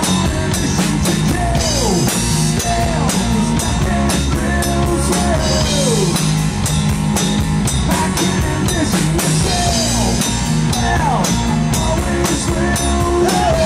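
Live rock band playing electric guitar, bass guitar and drum kit, with a steady drum beat under a melody line that slides down in pitch several times.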